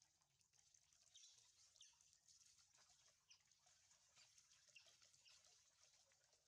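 Very faint, short, high squeaks from a wet baby monkey, repeated irregularly over a faint steady hiss of running water.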